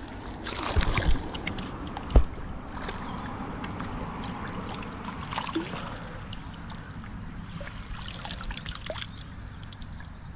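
Fishing landing net lowered into the water and swished about, splashing, as the small catch is let go, then lifted out with water dripping and trickling off the mesh. A single sharp knock about two seconds in.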